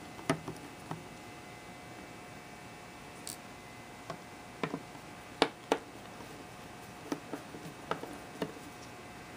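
Small screwdriver turning out tiny Phillips screws from an aluminium rail's end block: scattered light metallic clicks and ticks, about a dozen, loudest around the middle.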